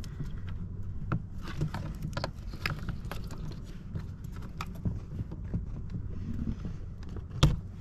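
Flathead screwdriver prying at plastic parts on the inside of a BMW F34 door panel: scattered small clicks and scrapes, with one louder sharp click near the end.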